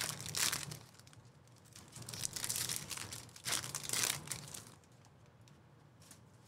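Foil trading-card pack wrappers crinkling and tearing as packs are ripped open, in two bouts: a brief one at the start and a longer one from about two seconds in to nearly five.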